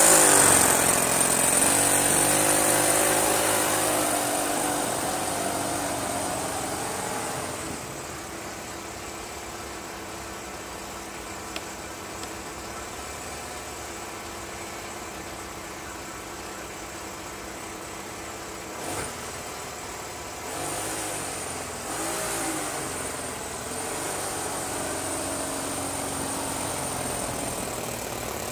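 Small engine of a miniature Wickham rail trolley running, loud at first with a rising and falling pitch, then fading as the trolley moves away. From about two-thirds through it revs up and down a few times and grows a little louder as the trolley comes back.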